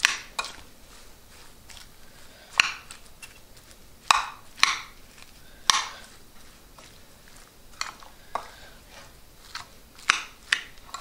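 A metal spoon clinking and scraping against a bowl while stirring chopped salsa of avocado, tomato and herbs, with about ten irregular sharp clicks spread through the stirring.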